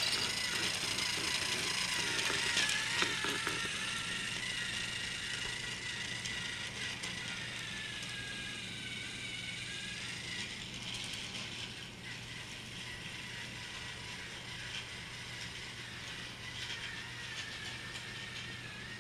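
Battery-powered toy Thomas the Tank Engine's geared motor whirring with a high, slightly wavering whine as it pulls its wagons along plastic track, growing gradually fainter as the train runs away.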